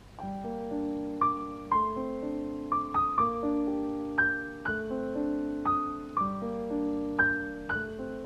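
Background piano music that starts right away, with notes struck about twice a second and left to ring over one another.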